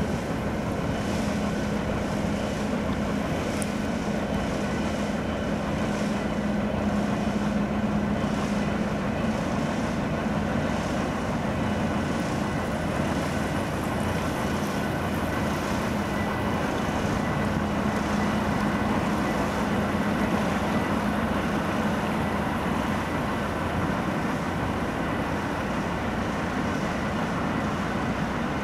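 A motoring sailboat's engine running at a steady hum, with water and wind noise around it.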